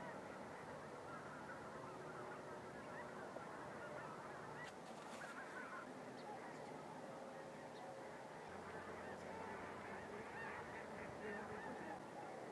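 A large flock of snow geese calling: a dense, unbroken chorus of many overlapping honks.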